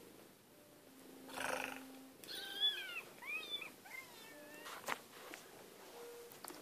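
Domestic cat giving several short, high-pitched mews that rise and fall in pitch, about two to four seconds in, after a brief breathy rustle.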